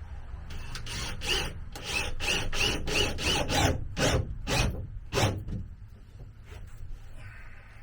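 Handsaw cutting a wooden board: about a dozen quick rasping strokes, roughly three a second, some with a slight squeak, stopping about five seconds in.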